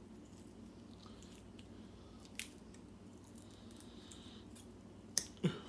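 Tape being picked and peeled off a small key by hand: faint crinkling and rustling, with a sharp click a couple of seconds in and two more clicks near the end.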